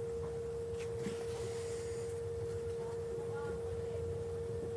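A steady single-pitch tone, like an electrical whine, held unchanging over faint room noise.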